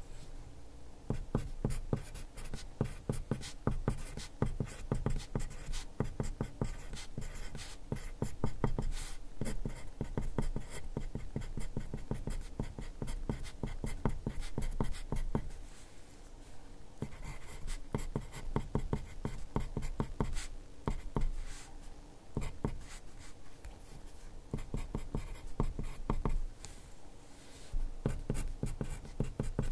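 Wooden graphite pencil writing Japanese characters on copy paper, close-miked: quick scratchy strokes in runs, with a few brief pauses between words.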